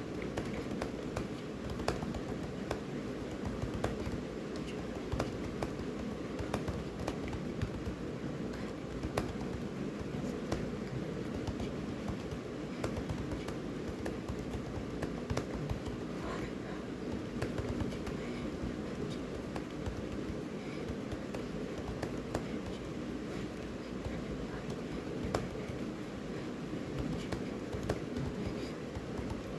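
Steady fast typing on a computer keyboard: a quick, irregular run of key clicks, several a second, over a low background hum.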